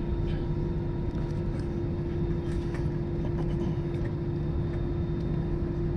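Steady rumble inside an airliner cabin just after arrival, with a constant hum from the engines and cabin air system and no change in level.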